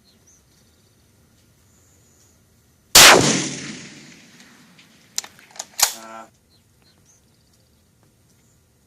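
A single .308 precision rifle shot, about 3 seconds in, its report trailing off over about a second and a half. A few sharp metallic clicks and a short ringing clink follow a couple of seconds later.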